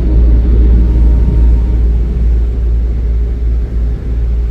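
Boat engine running with a steady low rumble, heard on board while under way.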